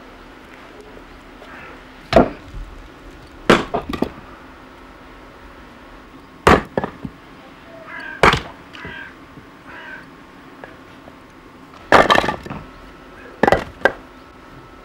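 Firewood being chopped with an axe: sharp wooden cracks at irregular intervals, some single and some in quick runs of two or three, with a pause of a few seconds between them.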